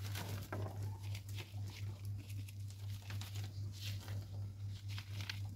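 Faint, scattered rustling and light taps of bonsai substrate being scooped and pressed in around the roots with a small plastic nursery pot, over a steady low hum.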